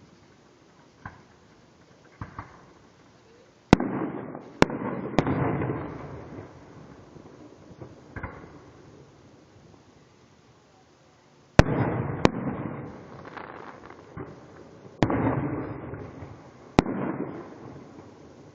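Fireworks going off: a couple of faint pops, then three loud sharp bangs, each followed by a long echo that fades over a couple of seconds, with several smaller bangs in between.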